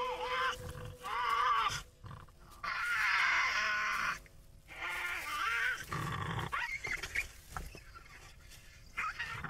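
Tasmanian devils screeching and growling as a male and female wrestle in the den during mating. The calls come in several harsh bursts of about a second each, wavering in pitch, with short pauses between them.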